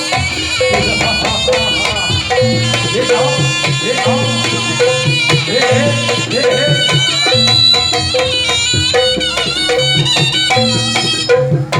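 Javanese jaranan music: a shrill reed pipe plays a wavering, bending melody over hand drums and a steady repeating beat.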